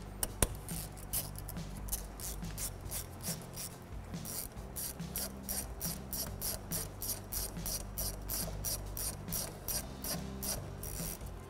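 Ratchet wrench with a 10 mm socket clicking as it is swung back and forth to tighten a hose clamp on a radiator hose. The clicks are sparse at first and become a quick, even run of about four a second from around four seconds in.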